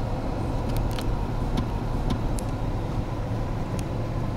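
Vehicle engine running with a steady low rumble, with a few faint clicks over it.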